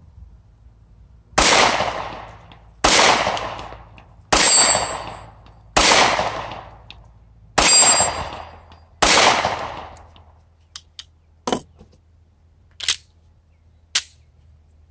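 Walther PPS M2 pistol firing six shots at a steady pace, about one and a half seconds apart, each crack trailing off in an echo of about a second. A few much fainter, short sharp cracks follow near the end.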